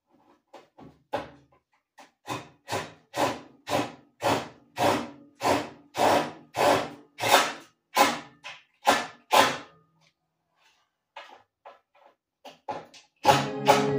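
Rhythmic back-and-forth strokes of a hand tool worked on wood, about two a second, some fifteen in a row, then a few fainter strokes. Music comes in near the end.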